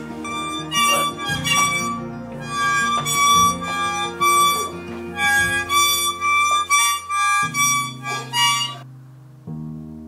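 Harmonica blown by a small child in short, irregular bursts of reedy chords, stopping a little before nine seconds in, over soft, steady low musical notes that carry on to the end.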